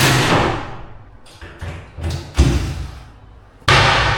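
Knocks and thumps from furniture installation work, with a sharp thump about two and a half seconds in. There are noisy stretches at the start and near the end.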